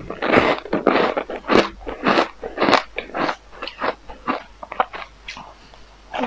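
Close-up chewing of a mouthful of powdery frozen ice: a quick run of loud, sharp crunches that thin out and grow softer after about three seconds as the ice is ground down.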